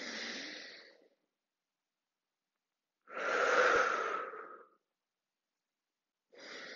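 A woman breathing audibly while holding one-legged balances: three separate breaths with silence between them. The middle breath, about three seconds in, is the loudest and longest.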